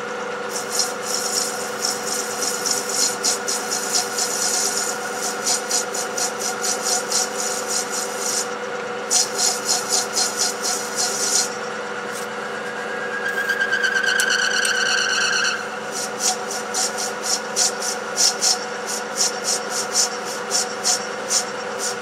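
Metal lathe running while a cutting tool turns down a phosphor bronze bar: a steady machine hum with a fast, irregular ticking from the cut. About 13 seconds in, a high squeal from the tool lasts two to three seconds, then the ticking resumes.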